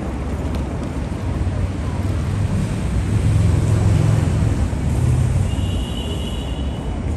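City street traffic: a low rumble that swells around the middle as a vehicle passes, then eases. A short high-pitched tone sounds near the end.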